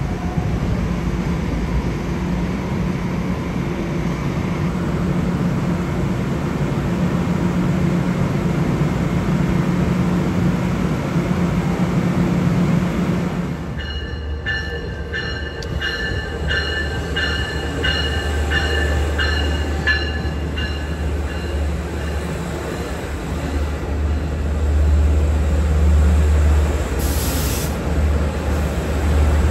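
A stopped Long Island Rail Road electric train hums steadily at the platform. Then a bell rings in evenly spaced strokes, about two a second, for several seconds, while the deep rumble of an arriving diesel push-pull bilevel train grows louder, with a short high hiss or squeal near the end.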